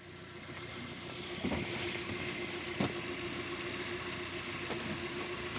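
A car engine idling steadily: the helper car running on jumper cables to charge a flat battery. It builds over the first second or so, with two faint clicks about a second and a half and three seconds in.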